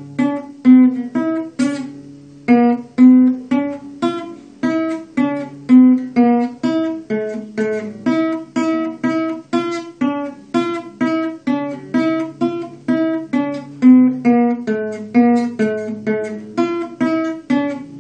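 Classical nylon-string guitar played with the fingers: a steady melody of single plucked notes, about two or three a second, each ringing out over lower held bass notes.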